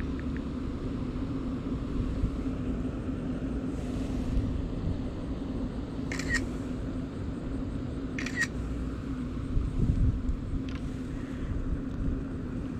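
Smartphone camera shutter sound going off twice, about two seconds apart, over a steady low hum.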